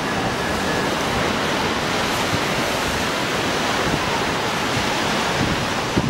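Sea waves breaking and washing over a rocky shore: a steady, even rush of surf with no separate crashes standing out.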